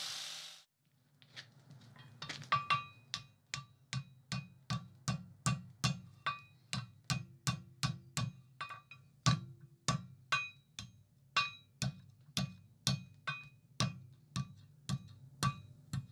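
Hand hammer striking red-hot steel on the horn of an anvil, a steady rhythm of about two to three blows a second, each with a short metallic ring, as the forged steel bar is shaped into a curve. A grinding sound cuts off at the very start.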